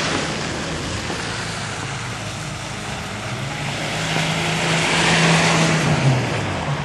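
Vehicle driving past on a snowy street: a swell of road noise, with a steady engine hum that comes in about halfway and dips slightly in pitch before it fades.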